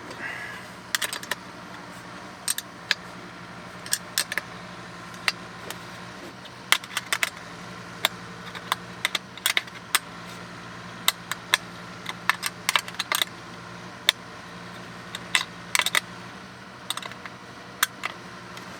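Irregular metallic clicks and clinks, some single and some in quick clusters, as small parts and tools are handled while a diesel heater is fitted under a van seat. A steady low hum runs underneath.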